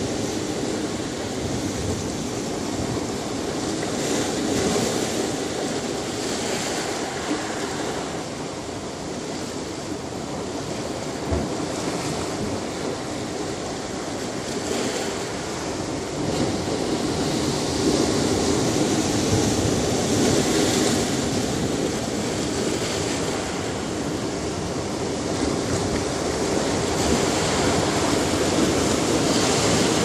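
Ocean surf breaking over rocks: a continuous rush of water that swells and eases, and grows louder in the second half.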